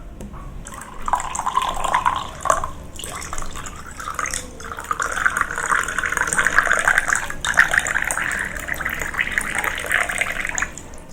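Water dripping fast and trickling, dense enough to sound close to a thin running stream. It eases off briefly about three seconds in, builds again, and thins out near the end.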